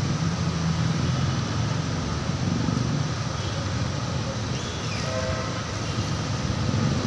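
Steady rushing noise of riding a bicycle along a city street: wind across the phone's microphone mixed with motor traffic, with a faint brief tone about five seconds in.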